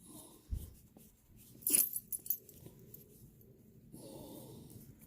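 Sharp metallic clicks and clinks of tools and screws being handled while bike-seat screws are taken out, loudest about two seconds in, after a dull knock; a short wavering whine follows near the end.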